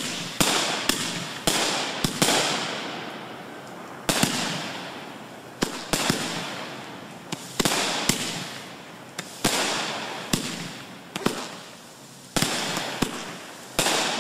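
Aerial fireworks bursting in quick succession, a sharp bang every second or so with a short lull early on. Each bang is trailed by a hiss that fades over a second or two.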